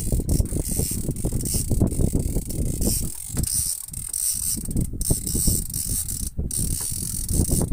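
Fishing reel being wound in against the pull of a hooked tope, its gears giving a rapid, steady clicking.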